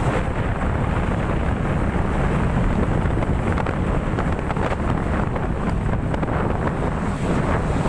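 Wind buffeting the microphone: a steady, rough, low rumble.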